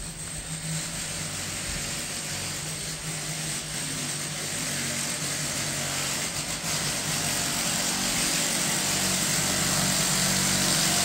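An engine running steadily: a low hum under a loud hiss, slowly growing louder.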